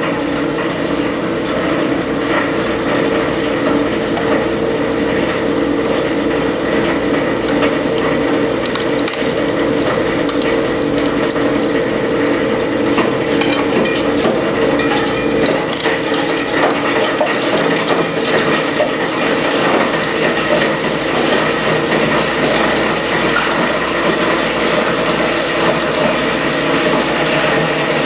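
SEM Model 2-SSD solid-state disintegrator running with its filtration system while its cutting chamber chews up 2.5-inch solid-state drives: a steady machine drone under a dense, irregular rattle of clicks and cracks as the drives are broken into particles.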